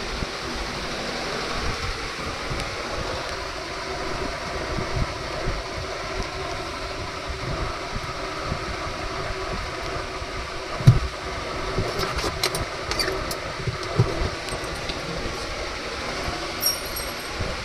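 Washing machine running with a steady mechanical rumble and hum, with a sharp knock about eleven seconds in and another a few seconds later.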